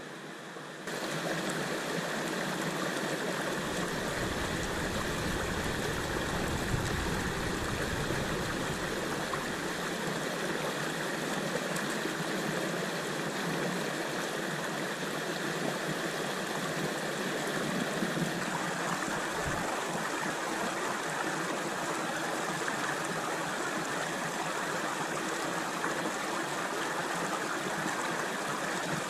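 A mountain river splashing over boulders and through a small cascade: a steady rush of water that comes in about a second in.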